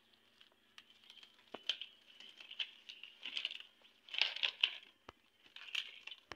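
Coconut-frond leaflets rustling and crackling as they are folded and woven by hand, in short scratchy bursts with a few sharp clicks.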